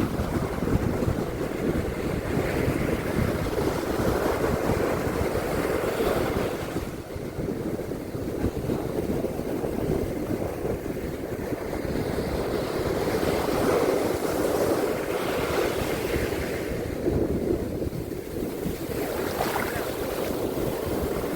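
Ocean surf on a beach, waves washing in and swelling several times, with a steady low rumble of wind on the microphone.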